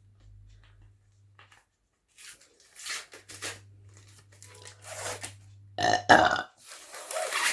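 A woman burps once, loudly, about six seconds in, from chugging Thums Up cola, after a run of short noisy sounds from about two seconds in.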